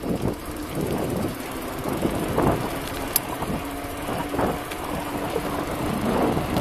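Riding noise of an e-mountain bike pedalled uphill on asphalt with its motor assisting: wind buffeting the microphone in gusts over the rumble of knobby tyres. A steady low hum joins about halfway through.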